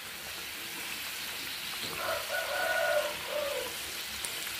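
Coconut rolls deep-frying in hot oil, a steady sizzle. About two seconds in, a drawn-out pitched call sounds in the background for about a second and a half.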